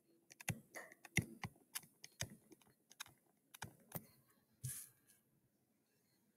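Faint stylus clicks and taps against a tablet screen during handwriting: an uneven run of sharp clicks that stops about four seconds in. A brief soft hiss follows just after.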